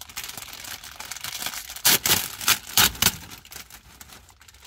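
Plastic snack packet crinkling and rustling as it is handled and pulled open, loudest in a few sharp crackles about two and three seconds in.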